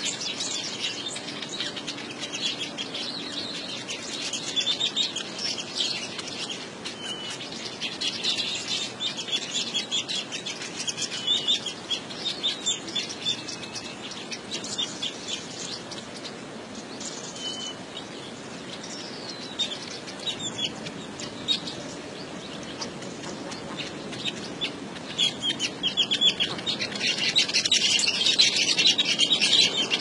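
Weaver birds chattering: a dense, rapid, buzzy chatter of short call notes, growing loudest in the last few seconds.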